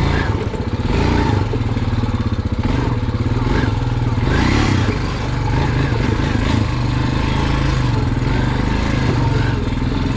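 Four-wheeler (ATV) engine running steadily at low speed, with a brief rush of noise about four seconds in.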